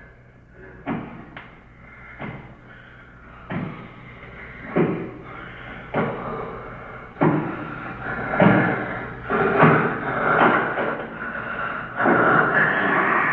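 A series of heavy bangs and thumps, sparse at first, then louder and coming faster, with a sustained rumbling bang near the end that cuts off suddenly.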